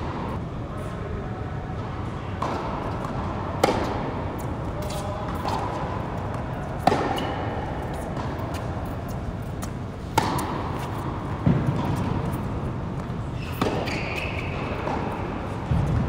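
Tennis ball struck back and forth by rackets in a rally on an indoor hard court: sharp pops every three seconds or so, with fainter knocks in between. A steady hum runs underneath.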